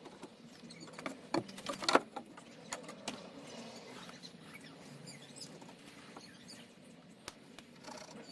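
Scattered knocks, clicks and light scraping from handling boards and tools at a workbench, loudest about one and a half and two seconds in.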